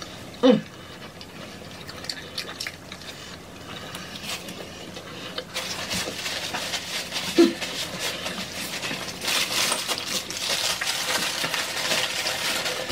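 Close-miked mukbang eating: tacos being chewed with wet mouth sounds, and two short low hums, one about half a second in and one past the middle. Paper wrapper handling thickens the noise in the second half.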